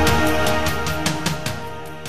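Background music with a steady beat, fading out.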